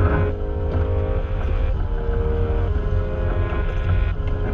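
Wind buffeting the microphone aboard a yacht sailing under way, a steady heavy low rumble, with water rushing past the hull.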